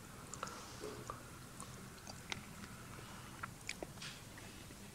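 Faint room tone with scattered small clicks and ticks, about a dozen, spread irregularly across the few seconds.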